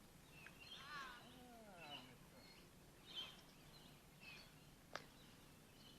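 Faint bird calls: scattered short chirps and sliding whistles, with a single sharp click about five seconds in.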